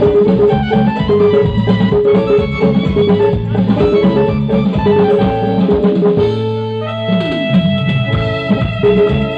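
Live band playing an instrumental passage on electric guitar, drum kit and keyboard, with a steady beat. About six and a half seconds in the drums drop away, leaving held chords and a note sliding down in pitch.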